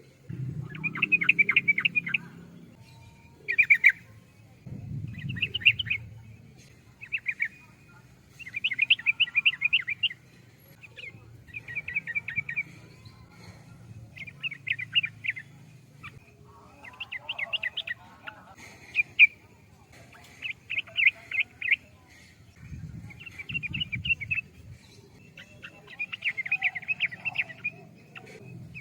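Yellow-vented bulbul (trucukan) singing: short bubbly phrases of quick notes, repeated every second or two. A few low rumbles come in near the start, around five seconds in and near the end.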